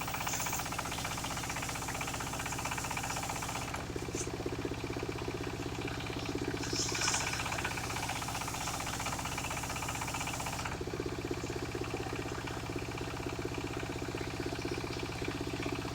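Engine-driven mobile circular sawmill running steadily while ripping timber into planks, its sound shifting about 4 and 11 seconds in as the load on the blade changes.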